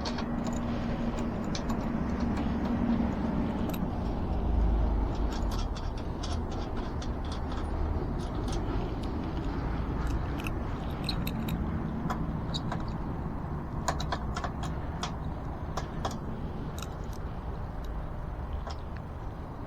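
Scattered light metal clicks, clinks and scrapes of hands handling e-bike parts while fitting a hub motor wheel into the frame, over a steady low rumble.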